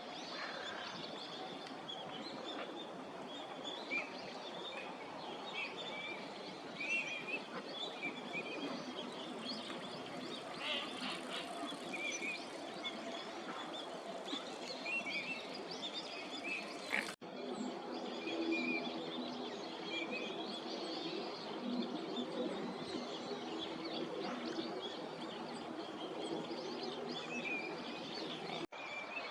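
A flock of Eurasian teal drakes giving short, high whistled 'krick' calls again and again, the courtship calls of pair formation, over a steady background hiss. The sound cuts out briefly twice.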